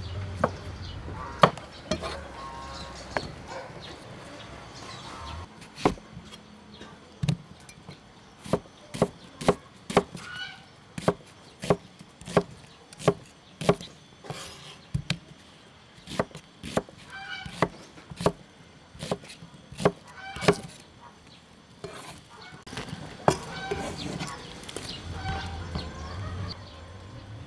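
Cleaver chopping onion and tomato on a wooden chopping board: a run of sharp knocks of the blade through the vegetable into the board, about two a second through the middle stretch and sparser at the start and end.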